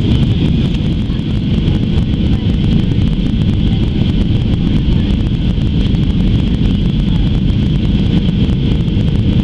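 Steady cabin noise inside a Boeing 737-800 airliner in flight: the low rumble of its CFM56-7B turbofan engines and the rush of airflow past the fuselage, with a steady hiss higher up.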